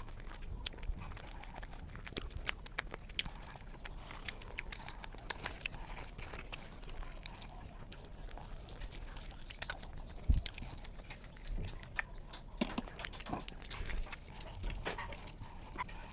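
A person eating close to the microphone: chewing and biting, with many short wet mouth clicks and one louder knock about ten seconds in.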